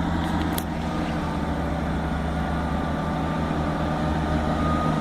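Class 158 diesel multiple unit's underfloor diesel engines running steadily in the platform as the train gets ready to pull away, with two brief clicks about half a second in.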